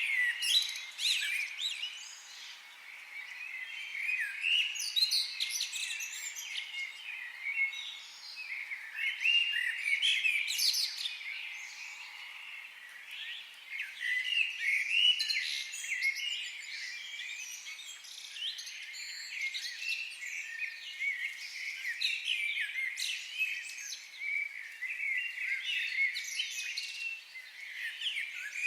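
Several small birds chirping and trilling at once, a dense, overlapping chorus of quick high notes that swells and eases every few seconds.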